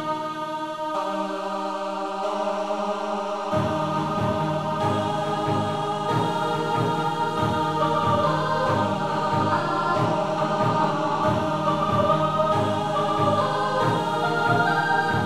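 Computer-made background music composed in LMMS: sustained choir-like chords, joined about three and a half seconds in by a bass line with a steady beat.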